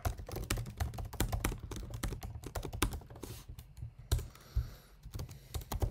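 Typing on a computer keyboard: rapid, irregular key clicks, with a short lull about four seconds in.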